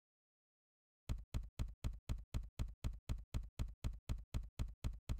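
A short, identical thump repeated evenly about four times a second, starting about a second in: a rhythmic intro sound effect.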